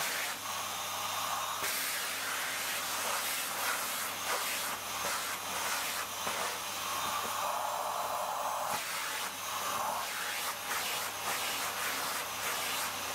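Vacuum cleaner running continuously, a steady airy hiss over a low hum, its tone shifting every few seconds as the airflow at the nozzle changes.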